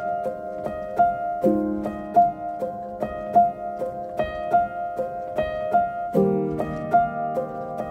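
Background music: piano playing a steady run of repeated notes over held chords. The chords change about a second and a half in and again near the end.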